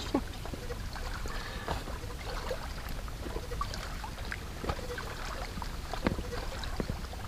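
Steady wind rumble on the microphone at a lake's rocky edge, with faint lapping water and scattered light clicks and knocks of footsteps on the shore rocks.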